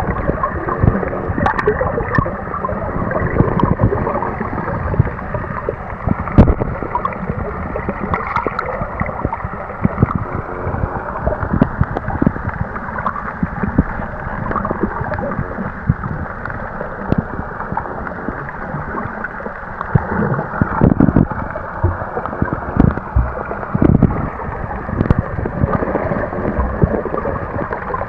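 Muffled underwater water noise: gurgling and bubbling, with many irregular knocks.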